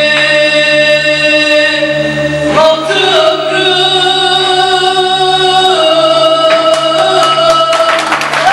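A man singing long held notes through a handheld microphone; rhythmic hand clapping joins in near the end.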